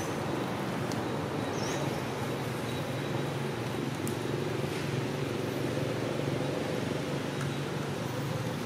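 A steady low rumble, as of a motor or vehicle engine running.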